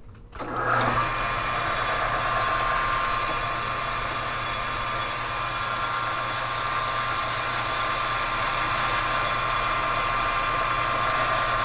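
South Bend metal lathe switched on less than a second in, the spindle and four-jaw chuck coming up to speed and then running steadily, with a steady motor hum and a steady gear whine.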